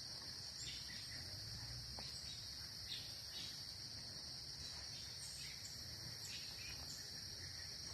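A chorus of crickets trilling, a continuous high-pitched drone that does not let up.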